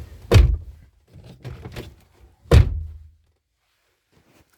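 BMW E36 car door shut twice: two heavy thunks about two seconds apart, with lighter clicks between them.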